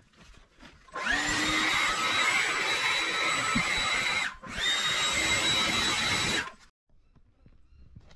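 Stihl battery leaf blower run in two blasts, about three seconds and then about two seconds long with a short break between. Each blast spins up quickly to a steady high whine over rushing air and cuts off sharply.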